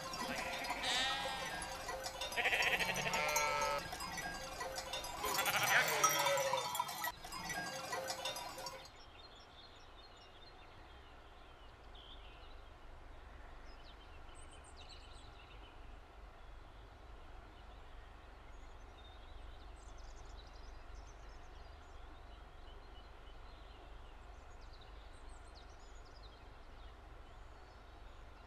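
A flock of sheep bleating, many overlapping calls, until an abrupt cut about nine seconds in. After that there is a quiet steady low rumble with faint scattered high chirps.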